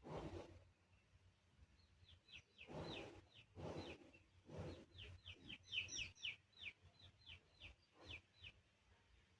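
Small birds chirping: a string of short, quick, downward-sliding chirps that comes fastest around the middle. Several brief rustling noise bursts come in between.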